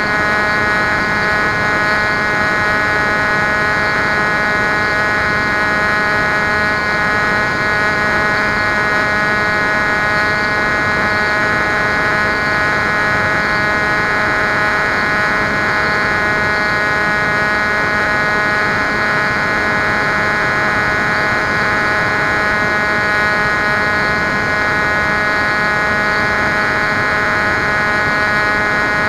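Bixler RC plane's electric brushless motor and pusher propeller running at a constant throttle, a steady buzzing whine picked up by the onboard camera, with rushing air noise underneath.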